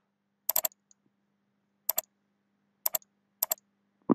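Computer keyboard keystrokes: four sharp clicks, each with its own quick double tap, spaced about a second apart, with a duller click near the end and a faint steady hum underneath.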